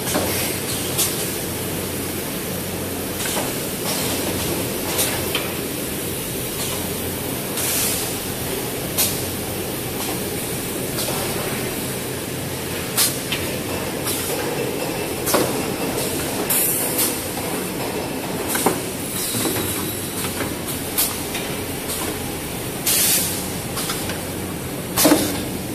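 Automatic toilet paper and kitchen towel paper production line running: steady machine noise broken by irregular sharp clicks and knocks every second or few, the loudest one near the end.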